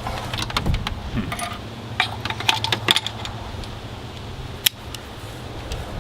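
Small metallic clicks and clinks while coax cable is worked through a rubber firewall grommet, busiest in the first three seconds, with one sharp click near the end, over a steady low hum.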